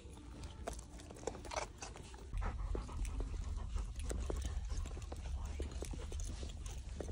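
Golden retriever panting as it walks on a leash, with scattered light clicks. A low rumble comes in about two seconds in and stays on.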